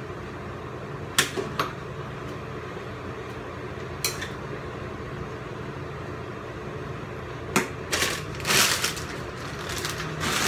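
Metal ladle clinking against a cooking pot as noodles are stirred: a few separate clicks, then a busier clatter about eight seconds in, over a steady background hum.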